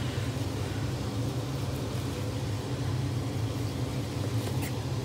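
Steady low mechanical hum, with a couple of faint knife strokes on a plastic cutting board near the end as the beef is trimmed.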